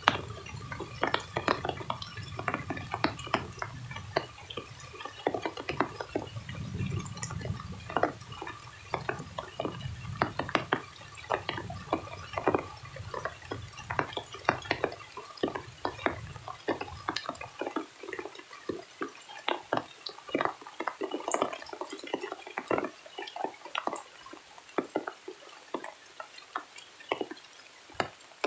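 Rain falling as many separate drops that drip and patter onto a surface. A low rumble runs under the first part and dies away about two-thirds of the way through.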